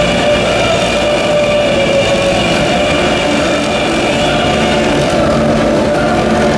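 Several motorcycle engines running together inside a steel-mesh globe of death: a loud, steady drone.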